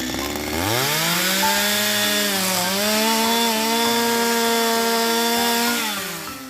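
Two-stroke petrol chainsaw revving from idle up to full throttle about half a second in, running steadily at high speed with a brief dip in pitch partway through, then dropping back toward idle near the end.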